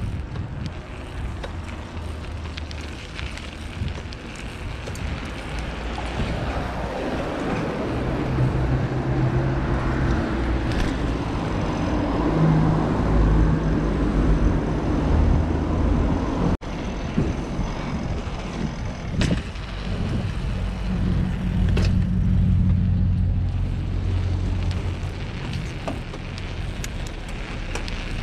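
Wind rushing over the microphone and tyre rumble of a mountain bike rolling along city streets, with car traffic around it. The sound drops out for an instant about two-thirds of the way through.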